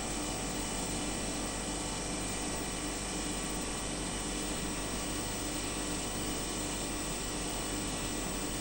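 Steady machine hum and hiss with faint constant whining tones, unchanging throughout.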